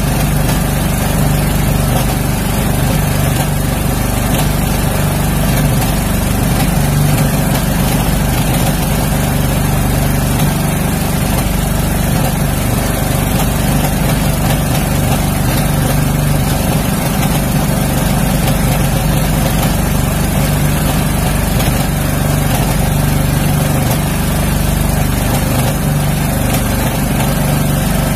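A small engine runs steadily on an outrigger fishing boat: an unchanging low engine hum with no rise or fall in speed.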